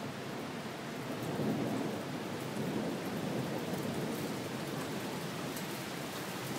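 Torrential downpour: heavy rain pouring steadily, swelling and getting louder about a second and a half in.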